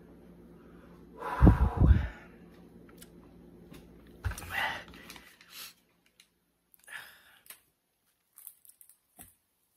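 A man's hard breaths blowing across the microphone as he reacts to the burn of superhot peppers: a loud double gust about a second and a half in, then a shorter breath with a brief grunt about four and a half seconds in, followed by a few faint small noises.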